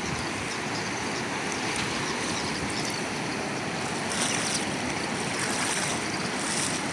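Fast floodwater of a rain-swollen river rushing steadily, with no break.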